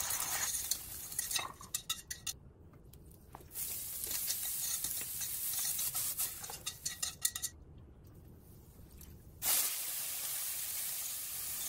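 Stir-fry ingredients sizzling in a hot pan in three short stretches, starting with beaten egg poured in and stirred, then sliced carrot and cabbage tossed. Utensils clink against the pan in between.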